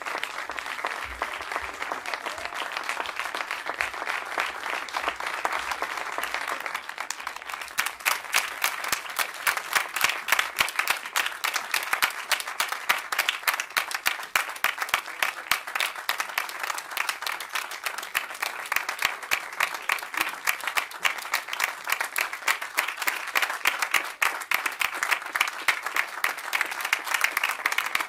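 Theatre audience applauding, a dense patter of many hands clapping that swells louder about seven or eight seconds in.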